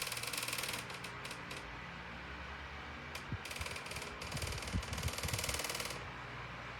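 Electric wall-mount fan running steadily, with patches of hiss and a few brief low knocks about three to five seconds in.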